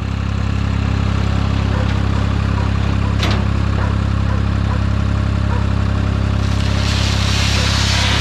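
Skid steer engine running steadily at a low, even pitch. A brief sharp click about three seconds in, and a hiss joins over the engine from about six and a half seconds in.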